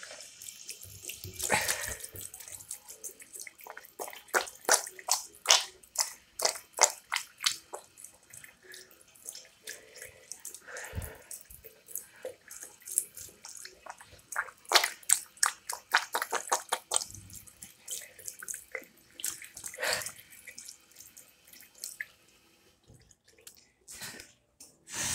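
Water from a tap splashing irregularly into an Armitage Shanks Portman ceramic sink as a hand is held and moved under the flow. The splashing stops about 22 seconds in, followed by two brief splashes near the end.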